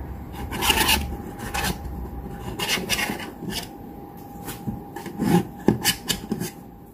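A knife scraping and rubbing along the inside edges of a metal loaf pan in a series of short rasping strokes, loosening a baked loaf of banana bread from the pan.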